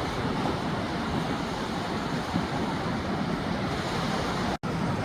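Sea waves washing onto a beach, a steady rush of surf, cutting out for an instant near the end.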